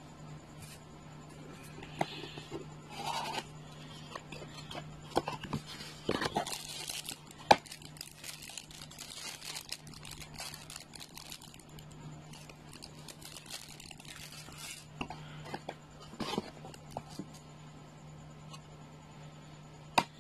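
Clear plastic packaging bag crinkling and rustling as a TV-box accessory cable is handled and lifted out of its cardboard box, with scattered sharp clicks and knocks. The loudest click comes about seven and a half seconds in.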